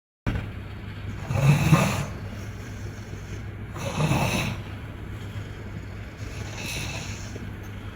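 A person snoring loudly in rasping swells about every two and a half seconds, the last one weaker, over a steady low hum.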